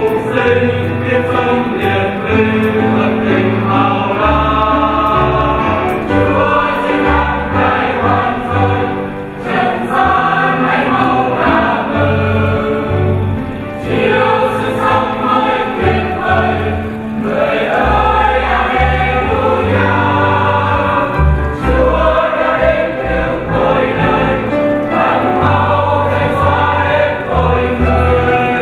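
Choir singing a hymn with instrumental accompaniment and a bass line under it, continuous and even in level.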